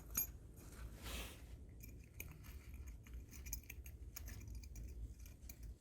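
Faint, scattered light clicks and metallic rattles of small car door lock parts being handled, with a brief soft hiss about a second in.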